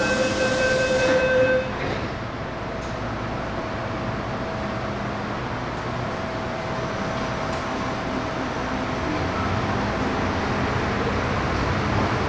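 MTR M-Train electric multiple unit: a warning tone over a hiss stops under two seconds in, then the train's steady running rumble inside the car.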